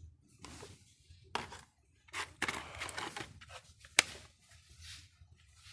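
Hands handling plastic wall switch and socket plates: rustling and scraping with a few sharp clicks, the loudest click about four seconds in.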